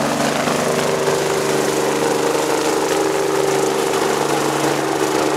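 Rescue helicopter flying past, its engines and rotor making a steady mechanical hum.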